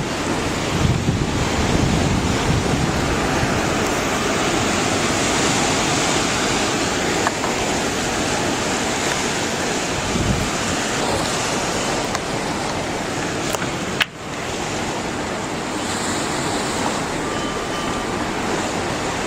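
Loud, steady rushing noise of waves and wind, briefly cut off about fourteen seconds in.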